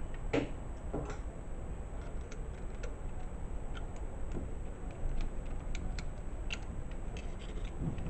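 Scattered small clicks and ticks of a screwdriver working a metal hose clamp onto the rubber drain hose of a washing machine drain pump, the loudest clicks in the first second.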